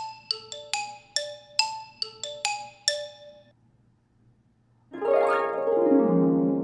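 Quiz-segment jingle: a short melody of about a dozen quick plucked, chime-like notes, then after a second of silence a loud sustained tone that starts about five seconds in and slides down in pitch.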